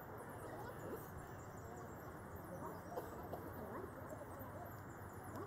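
Faint outdoor ambience: scattered short bird chirps over a low murmur of distant voices.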